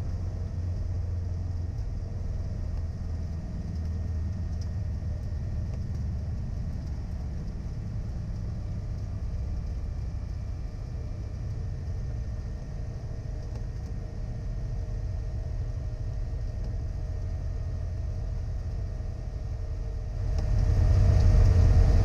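Single-engine propeller airplane's piston engine and propeller droning steadily, heard from inside the cockpit. The drone grows noticeably louder about twenty seconds in.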